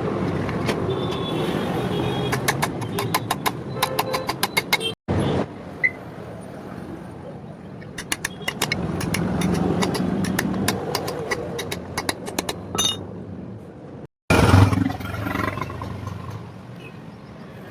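A scooter engine running with a steady rumble, overlaid by bursts of rapid, sharp metallic clicks. The sound drops out twice for a moment.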